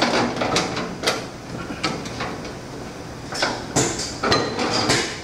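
Knocks and scraping of a finned motor stator housing being set on its side and slid onto the steel shelf of a metal shop cart. There are several sharp metal-on-metal clunks, one ringing briefly about four seconds in.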